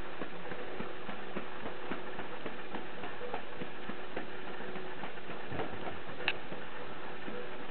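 Cats playing with a cat teaser wand: scattered light ticks and taps over a steady low hum, with one sharper click about six seconds in as a cat leaps at the toy.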